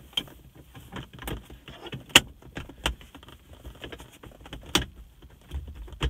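Plastic lens cover of a Toyota Corolla's overhead map light being pressed back into the roof console: a string of scattered clicks and taps, the sharpest about two seconds in.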